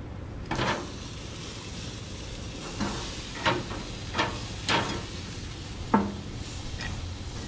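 A metal spatula scraping and clanking against a gas grill's grate about six times as a tilefish rack is lifted and flipped, the sharpest knock near the end. Under it runs a steady sizzle of the fish cooking on the hot grill.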